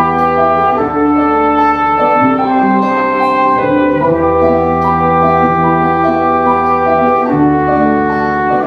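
Instrumental break of a pop song with no singing: a melody of held notes over long sustained bass notes.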